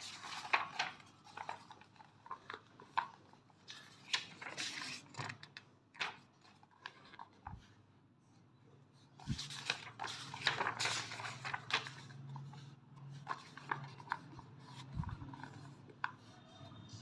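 Paper pages of a book rustling and flapping as they are turned by hand, in irregular bursts. A low steady hum comes in about halfway through.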